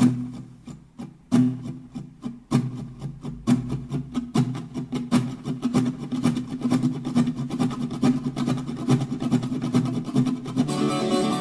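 Background music: rapid, rhythmic strummed or scraped strokes with a steady beat, and a plucked-string guitar melody coming in near the end.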